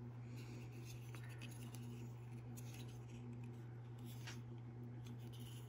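Faint scattered clicks and scratches of fingers working at the small plastic head of a Bittle robot dog, over a steady low hum.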